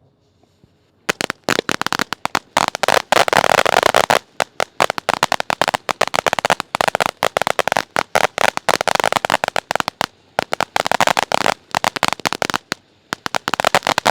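SS Thrusters firework fountain crackling: a loud, dense, rapid string of sharp pops that starts about a second in and keeps going with a few brief lulls.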